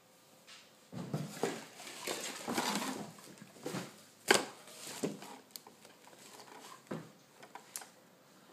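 Rustling and handling noises as a ventriloquist dummy is lifted out of its packaging and its cloth jacket is straightened, with a sharp knock a little over four seconds in and a few lighter clicks after.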